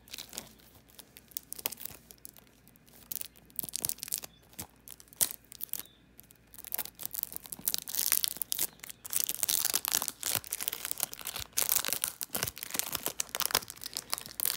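Plastic packaging being torn open and crinkled by hand as a DVD is unwrapped. It is a run of crackling rustles, scattered at first and then busier and louder about halfway through.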